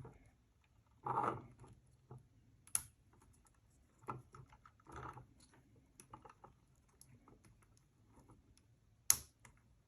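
Scattered small clicks and light handling noises of wires being pushed into plastic wiring connectors, with two sharper clicks, one a little under three seconds in and one near the end.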